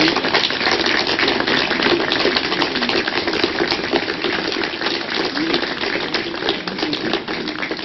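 Dense, steady crackling noise full of small clicks, with faint voices underneath.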